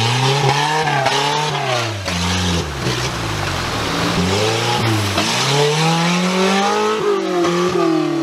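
A small off-road 4x4's engine revving up and down as it drives through deep mud ruts, the pitch rising and falling several times.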